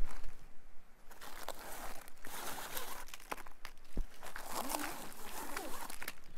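Rustling and crinkling handling noise from a plastic-wrapped bale of used clothing, heard as short, scattered clicks and crackles.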